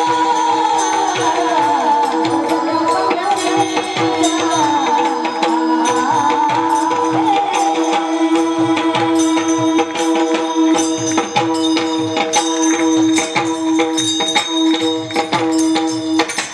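Marathi kirtan music: steady held notes under a rapid beat of hand cymbals and drum. A singing voice gliding between notes is heard in roughly the first seven seconds; after that the instruments carry on without singing.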